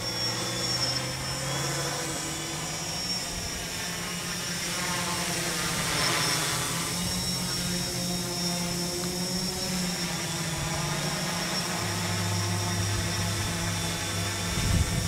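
XAircraft X650 quadcopter's four brushless electric motors and propellers buzzing steadily in flight. The pitch steps up and down a couple of times as the motor speeds change.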